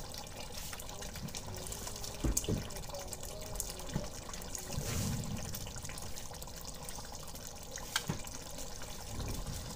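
Chicken karahi gravy simmering in a pot: a steady bubbling with scattered small pops, and sharper pops about two seconds in and near the end.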